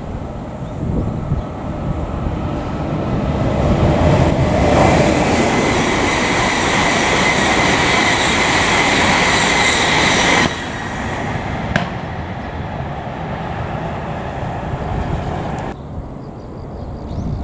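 Railway cars rolling along the track: a rumble that builds over a few seconds, then holds loud with a steady high-pitched wheel whine. It drops suddenly about ten seconds in to a quieter rolling rumble.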